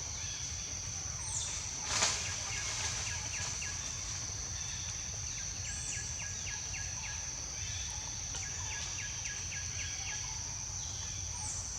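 Outdoor ambience: a steady high-pitched insect drone with bursts of short, rapid bird chirps and a few brief falling calls, over a low rumble. A single brief knock about two seconds in.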